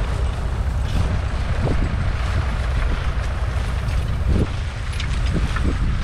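Wind buffeting the microphone: a steady low rumble, with a few faint scattered clicks on top.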